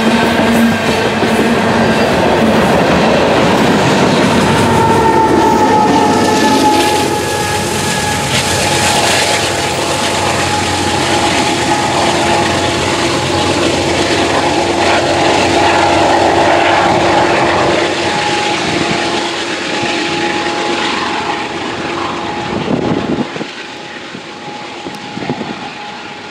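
Union Pacific freight train of covered hopper cars passing at speed, the cars rumbling and the wheels clattering over the rails. The noise drops away near the end as the train clears.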